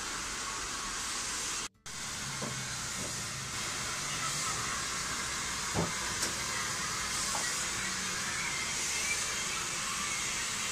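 Water hissing steadily from a salon shampoo-bowl hand sprayer rinsing hair color out of wet hair, with a brief cut-out of the sound near two seconds in and a couple of faint knocks against the basin.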